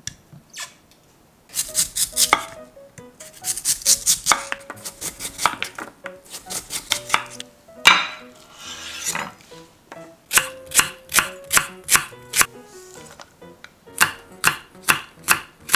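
Chef's knife chopping on an end-grain wooden cutting board, in runs of quick, even strokes several a second, first through a peeled radish and later through green chili peppers. Around the middle there is one hard knock, then a longer scraping as the cut radish strips are pushed onto a tray. Soft background music plays underneath.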